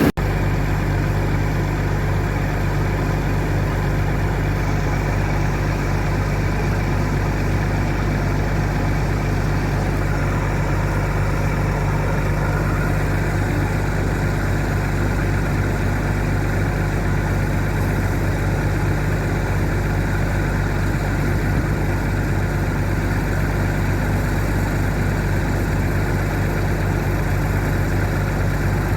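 Combine harvester's engine and machinery running at a steady speed without let-up.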